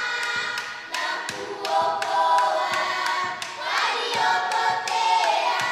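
A group of voices singing together in chorus over steady handclaps, about three claps a second.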